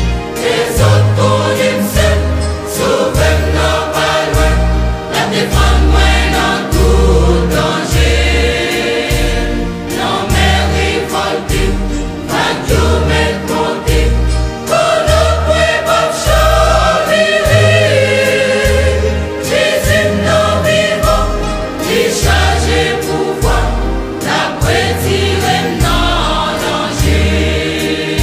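Haitian Creole gospel song: a choir sings over a steady beat with a deep bass line that changes note about once a second.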